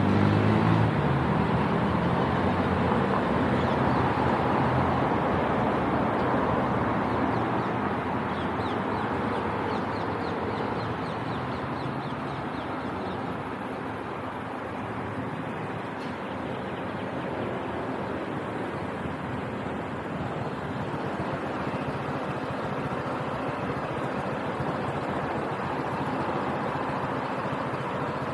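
Motorcycle riding on city roads: engine and wind and road noise. It is loudest at the start and eases off gradually over the first half, then runs on steady and quieter.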